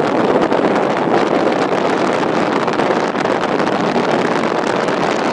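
Strong wind blowing over the microphone in a loud, steady rush, with choppy lake waves breaking on the shore.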